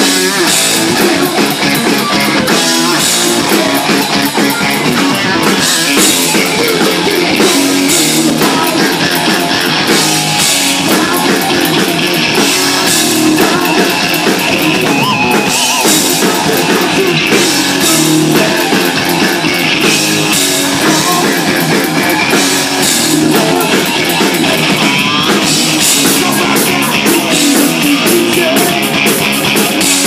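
Live rock band playing loudly without pause: electric guitar, bass guitar and drum kit.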